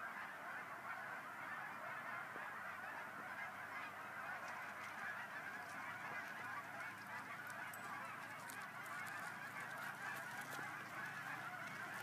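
A flock of many geese honking at once, a dense, steady chorus of overlapping calls.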